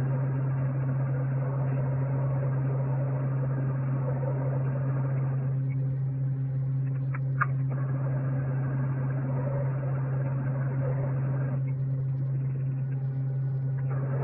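Steady low machine hum with a noisy wash over it, and a couple of faint clicks about seven seconds in.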